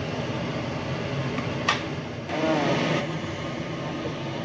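Steady machine hum, with one sharp click about a second and a half in and a short, wavering pitched sound just after the middle.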